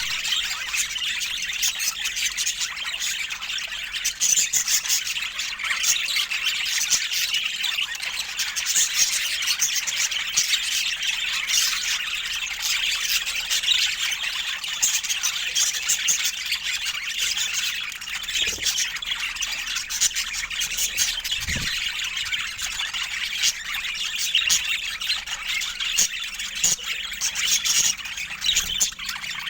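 Budgerigars chattering: a continuous, busy stream of short high chirps, warbles and calls, with no pause.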